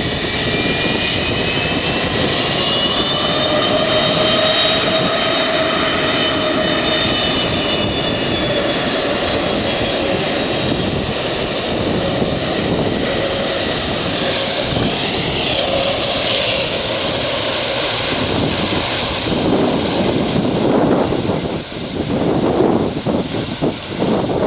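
American Airlines Boeing 757 jet engines at takeoff thrust, heard from right behind the aircraft: a loud, steady jet roar with whining tones. Near the end the sound turns choppy and gusty as the jet blast buffets the microphone.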